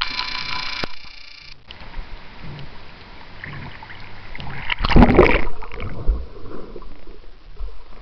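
Pool water lapping and sloshing at a camera held at the water's surface, with one loud splash about five seconds in. A steady high-pitched sound is heard for the first second and a half.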